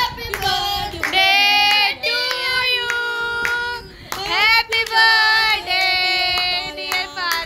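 Children singing together in long held notes, with hands clapping along; the singing drops briefly about four seconds in, then picks up again.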